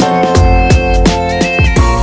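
Background music: an instrumental track with held melodic notes, deep bass and a steady drum beat.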